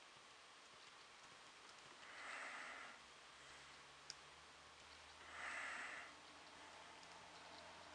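Near silence, with soft breaths through the nose close to the microphone, about one every three seconds, and a single faint click about four seconds in.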